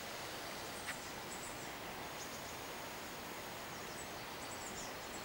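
Faint, high-pitched bird chirps and one longer thin whistle over a steady rushing background hiss, with a single sharp click about a second in.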